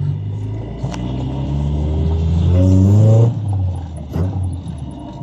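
Car engine revving up, its pitch rising steadily for about two seconds before the throttle closes abruptly a little over three seconds in. A sharp crack follows about a second later.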